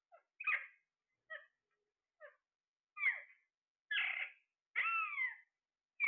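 Alexandrine parakeet calling: about six calls, roughly one a second. The first few are short and faint, and the later ones are longer and louder, with a pitch that arches up and falls away.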